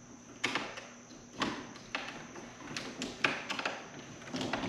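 Screwdriver and wire clicking and tapping against the breakers and terminal screws of an electrical breaker panel, a string of sharp, short clicks at irregular intervals, about one a second.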